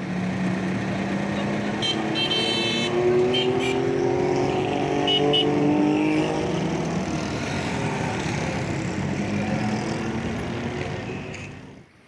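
Road traffic: motorcycle and vehicle engines running and passing, their pitch rising and falling, over a steady rush of noise, with a few short high-pitched sounds about two to three seconds in and again around five seconds.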